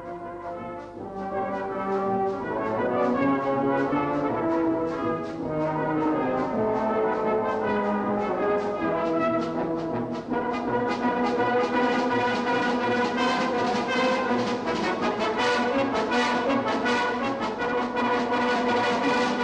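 A brass band of cornets and tubas playing together, swelling from soft to full over the first few seconds, then playing steadily, with a fuller, brighter sound from about halfway.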